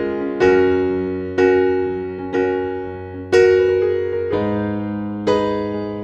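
Background music: slow piano chords, one struck about every second and left to ring and fade.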